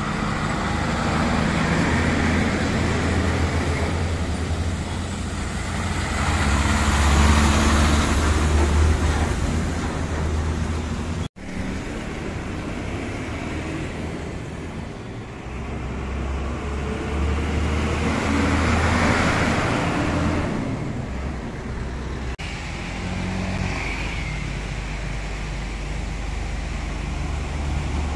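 Heavy diesel trucks driving past one after another, each one's engine rumble and tyre noise swelling and fading as it goes by, over steady road traffic. The sound drops out for an instant about a third of the way through.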